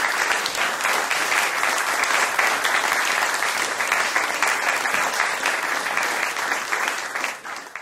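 Audience applauding steadily with a dense clatter of many hands clapping, dropping off near the end.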